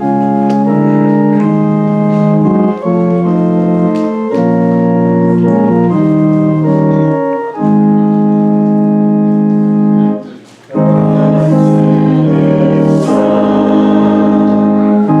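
Organ playing a hymn in long sustained chords, with a short break about ten seconds in before the chords resume.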